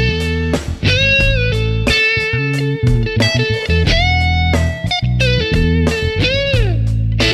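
Background instrumental music: a guitar-like lead melody of held, sliding notes over a steady bass line.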